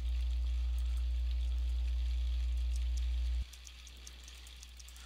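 Steady low electrical hum with a buzz, which cuts off abruptly about three and a half seconds in. Faint clicks of computer keyboard typing run through it.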